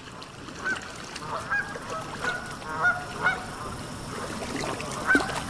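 Birds calling: a run of short, pitched calls, about seven in five seconds, over a steady background hiss, the loudest call near the end.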